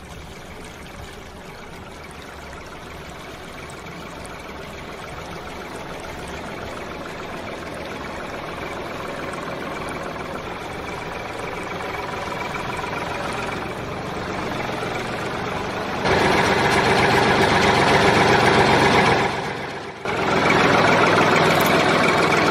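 Small electric motor of a DIY toy tractor running with a steady whirring hum. It grows gradually louder, jumps louder about two-thirds of the way through, cuts out for a moment near the end, then comes back.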